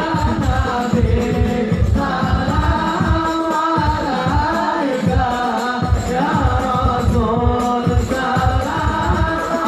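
A group of men singing a devotional Maulid song together in unison, a melodic chant of praise for the Prophet, over a steady low beat.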